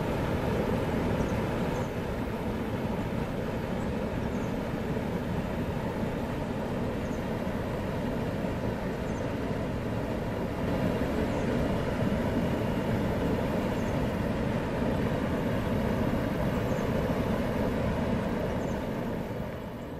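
Steady rush of water pouring over a concrete spillway weir into a churning pool, fading out at the very end.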